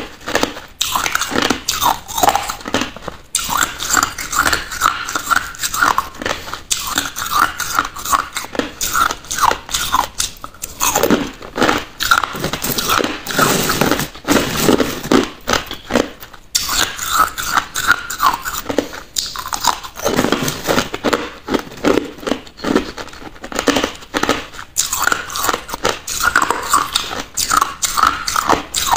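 Crushed ice being bitten and chewed, a fast run of sharp crunches with brief pauses between mouthfuls.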